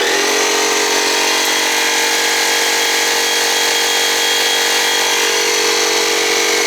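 Small air compressor switched on and running steadily in a short burst to build up pressure, a constant mechanical hum that starts suddenly; it sounds not very good.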